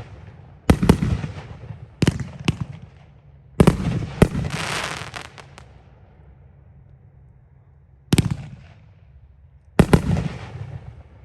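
A 500-gram consumer aerial firework cake firing its shells, with loud breaks going off one by one at uneven gaps, each trailing off in a rolling echo. After one break about four seconds in, a crackling effect rains down for a second or two.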